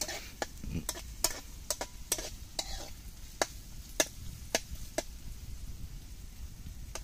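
Metal spatula scraping and clinking against an aluminium wok as sliced onions are stirred frying in oil, with a light sizzle underneath. The clicks come unevenly, about one or two a second.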